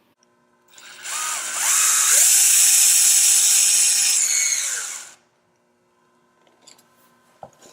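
Power drill running for about four seconds: its whine rises as it spins up, holds steady, then falls as it winds down and stops.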